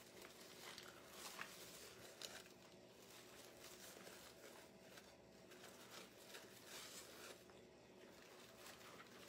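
Near silence: faint, scattered rustling of ribbon being tied and pulled into loops by hand, over a low steady hum.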